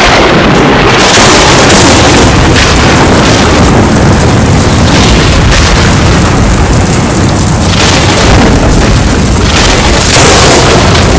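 Loud storm and explosion sound effects: dense, continuous rumbling thunder and booms that cut off abruptly at the end.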